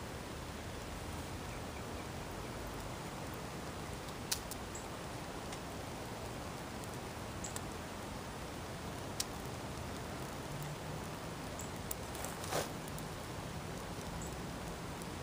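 Small tinder fire burning in a metal dish: a steady hiss with several sharp crackles and pops scattered through it, the loudest about four seconds in.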